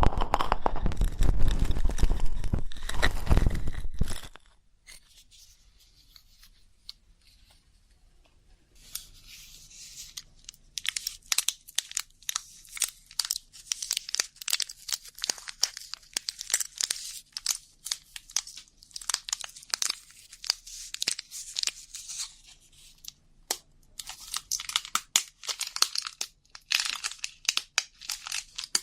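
Ear pick scratching and scraping close to an ASMR ear microphone: rapid, crisp high-pitched crackles and scrapes. Before that there is a louder rough rubbing for the first four seconds and then a short pause.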